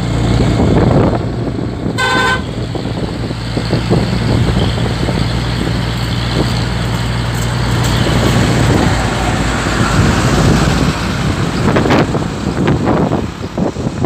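Heavy trucks' engines and road noise from a moving vehicle following and overtaking trucks, a steady drone with wind. A vehicle horn toots once, briefly, about two seconds in.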